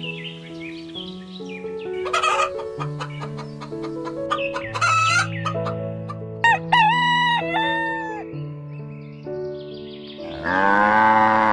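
Chicken and rooster calls over gentle background music: a run of clucking calls midway, then a loud rooster crow near the end.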